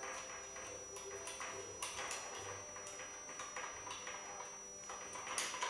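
Irregular light taps and knocks from a toddler's hands patting and gripping a wooden cabinet, with the loudest knocks about two seconds in and near the end.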